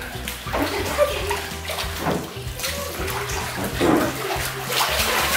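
Pool water sloshing and splashing as children move in a small above-ground pool, with background music.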